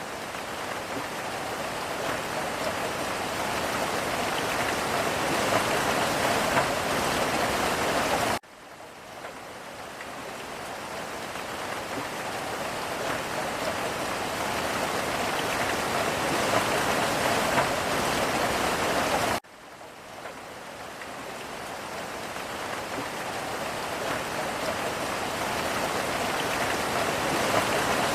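Steady rain pattering, heard from inside a boat. It cuts off abruptly twice, about 8 and 19 seconds in, and each time swells back up gradually.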